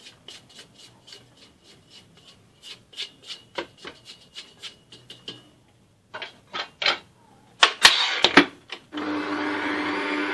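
Light scraping and ticking of a spoon and spatula working flour in a stainless steel stand-mixer bowl, then several sharp clacks as the mixer head comes down onto the bowl. About nine seconds in, the stand mixer's motor starts and runs steadily with a low hum.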